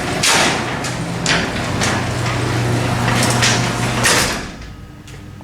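Electric garage door opener running as it closes the door: a steady motor hum with repeated scraping noises from the door travelling in its tracks, stopping about four seconds in as the door shuts. The scraping is something on the door rubbing.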